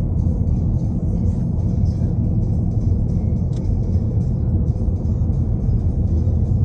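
A steady low rumble, with music.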